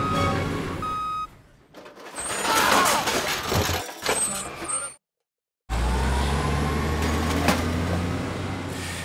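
Sound-effect dump truck: reversing beeps twice at the start, then a clattering rush as a load of junk is tipped out of the raised bed, then after a short gap a steady engine rumble.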